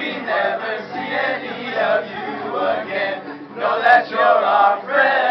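A group of teenage boys singing together in unison to an acoustic guitar, with a sharp click about four seconds in.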